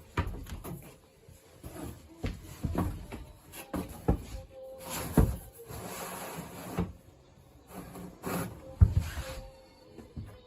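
Background music under a series of knocks and scrapes of wooden boards being handled, with two longer rubbing or scraping sounds about five and eight seconds in.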